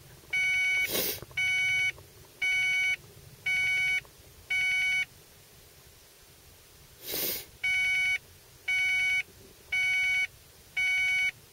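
Electronic warning chime under the dash of a 1995 Ford Probe GT, beeping about once a second in two runs of five with a pause between, much like a door-ajar chime. It keeps going with the car off and locked, which the owner blames for draining the battery. Two brief rushing noises come about a second in and again after about seven seconds.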